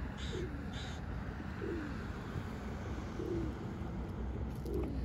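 Feral pigeons cooing: four short, low, falling coos about a second and a half apart, over a steady low rumble.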